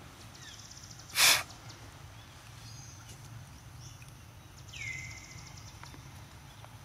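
A short, loud, breathy puff of noise about a second in, then a faint high call that falls and holds a steady note for about a second, near the five-second mark.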